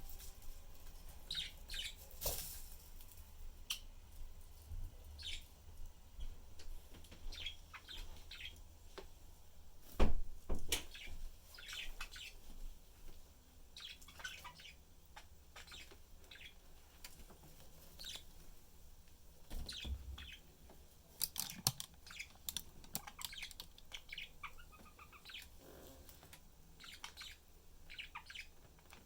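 Budgies (budgerigars) chirping and twittering in short, scattered high calls, with a few sharp knocks; the loudest is about a third of the way in.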